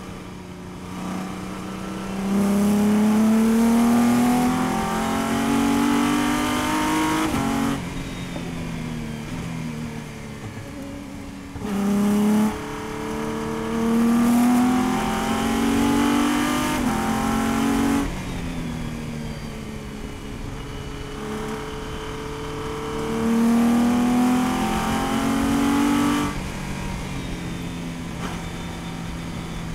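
Prototype race car's engine heard from inside the cockpit, rising in pitch under hard acceleration three times. Each time the sound drops off suddenly as the driver lifts for braking, and the engine runs quieter and lower between the pulls.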